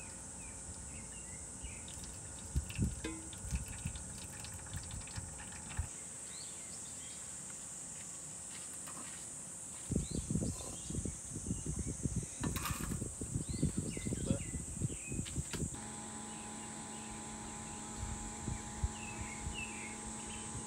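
A steady chorus of night insects such as crickets, with small scattered chirps. From about ten seconds in comes a run of soft knocks and clatter, and about three-quarters of the way through a low steady hum starts.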